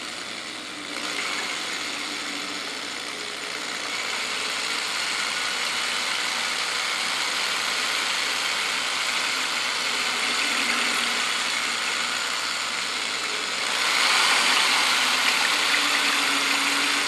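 Electric drill running steadily with a paddle mixer churning a bucket of water as gelatin powder is stirred in. It grows gradually louder, with a step up near the end.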